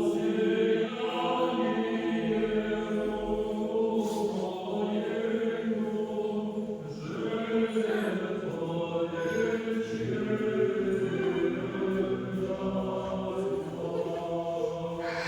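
A group of voices singing a slow chant in long, held notes.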